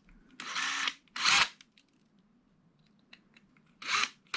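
A drill bit grinding into the metal rivet head of a die-cast toy car base in short bursts, each about half a second, two close together at the start and more near the end, as the rivet head is nearly drilled off.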